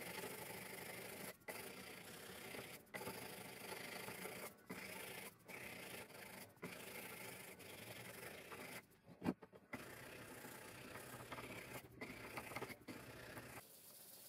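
Hand sanding a knife's metal guard with abrasive paper: a steady rubbing scratch that breaks off briefly several times, with a single sharp knock about nine seconds in.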